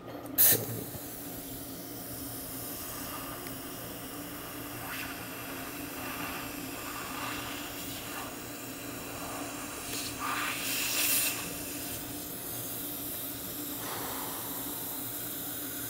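Dental suction running at the patient's mouth: a steady hiss of drawn air, with brief louder rushes about half a second in and again around ten to eleven seconds.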